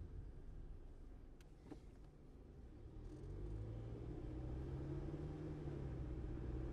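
Car engine and road noise while driving. The sound dips about two seconds in, then the engine note rises as the car speeds up and levels off, growing louder.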